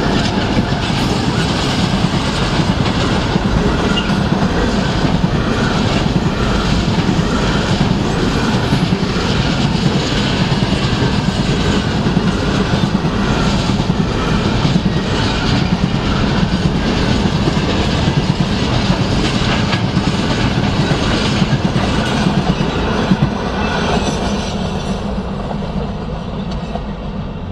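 Freight train hopper wagons rolling past at speed: a loud, steady rumble and rattle of steel wheels on rail with repeated clickety-clack over the joints. It dies down over the last few seconds as the end of the train passes.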